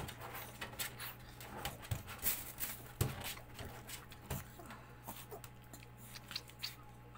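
Close handling noises as a steel hemostat clamps and twists the ear hair of a Maltese puppy: fur rustling and irregular small clicks and knocks, the sharpest about three seconds in, with brief sounds from the puppy over a steady low air-conditioner hum.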